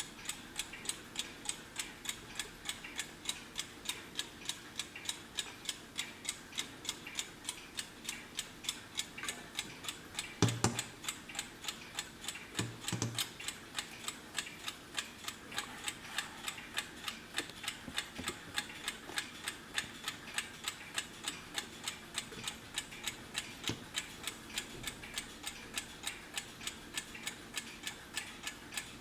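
Vintage German Wehrle three-in-one alarm clock ticking steadily, its mechanical movement running. Two brief, louder thumps come near the middle.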